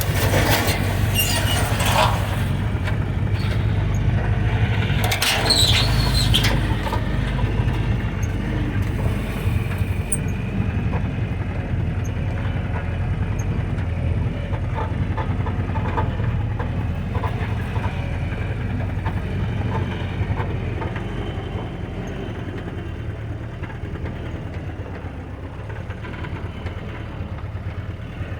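Old Jeep's engine running steadily as it crawls off-road over rough ground. There are loud harsh bursts of noise in the first two seconds and again about five seconds in, then the sound eases off gradually.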